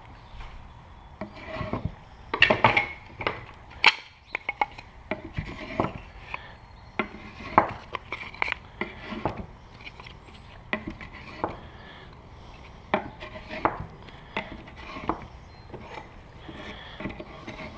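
Wooden beehive frame parts knocking and clattering as they are handled and set into a wooden assembly jig: irregular sharp knocks, sometimes several in quick succession.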